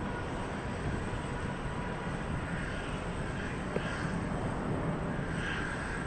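Boeing 787-9 jet engines heard as a steady rumbling roar as the airliner climbs away after a go-around.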